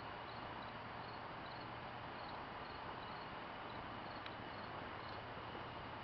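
Steady background hiss with faint high-pitched insect chirps repeating in short groups about twice a second.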